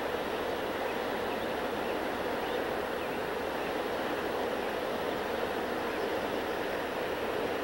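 Steady rushing of fast river current around a drift boat, an even wash of water noise.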